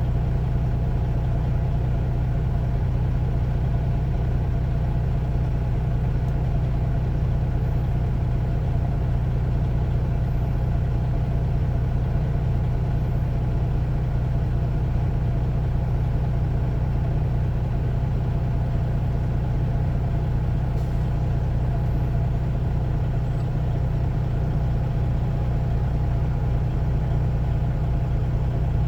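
Grain truck's engine idling steadily, an even low drone with no change in pace.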